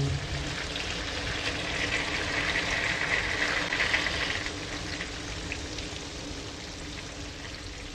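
Rain pouring down steadily, a continuous hiss that swells about two seconds in and eases slightly toward the end.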